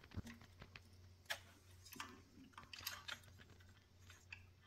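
Near silence broken by a handful of faint, scattered clicks and light taps from small metal engine parts and a measuring bar being handled at the timing sprocket, over a faint steady low hum.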